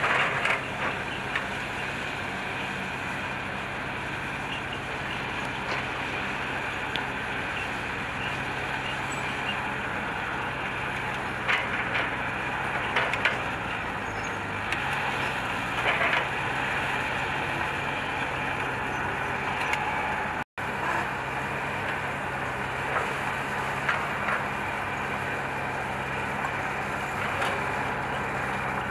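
Heavy diesel earth-moving machinery running steadily under load, with a few clanks and knocks through the middle. The sound cuts out for an instant about two-thirds through.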